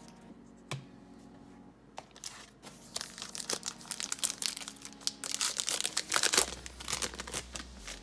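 Foil wrapper of a pack of trading cards crinkling as it is torn open and handled. It starts after a quiet couple of seconds with a single tap, then comes in dense crackles that are loudest past the middle.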